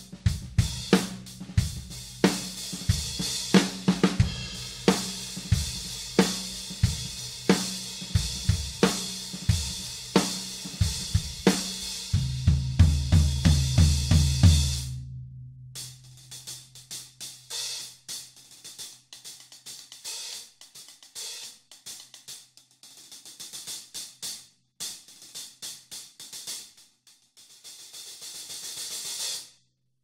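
A pair of 16-inch Dream Bliss hi-hat cymbals played with sticks in a drum-kit groove, with kick and snare. About 12 seconds in comes a fast run of low drum hits. Then the drums drop out and the hi-hats are played alone, opening into a swelling wash near the end that is cut off shut.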